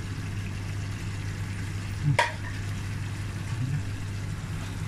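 Chicken pieces sizzling in a steel stockpot over a gas flame, an even frying hiss over a steady low hum. One sharp knock about two seconds in.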